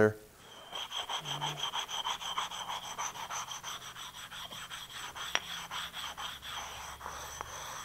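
Oiled India stone rubbed back and forth in steady, repeated scraping strokes over the cast-iron compound slide of a lathe, honing down burrs and high spots. A single light tick about five and a half seconds in.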